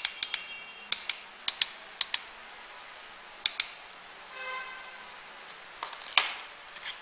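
Plastic push-buttons on a fireworks firing-system receiver clicking as the channel is stepped up or down, mostly in quick press-and-release pairs, with a louder knock near the end.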